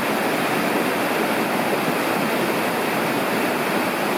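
Storm-swollen creek rushing steadily over its bed after heavy rain, a loud even roar of fast-flowing water.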